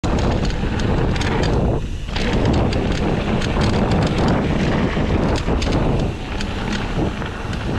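Wind noise on the microphone over the rattle of a mountain bike rolling down a bumpy dirt trail, with frequent small knocks and clatters.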